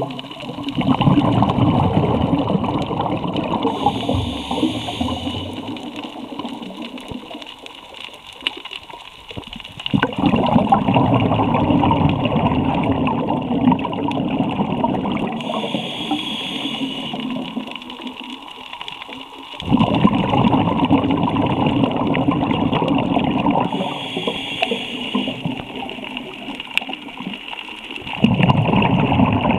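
A scuba diver breathing through a regulator underwater: four bubbling rushes of exhaled air, each starting suddenly and fading, about nine seconds apart, with a shorter, higher hiss of inhaled breath between each pair.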